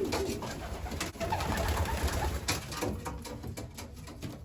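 Racing pigeons cooing inside the loft, a low pulsing murmur, with a few sharp taps mixed in.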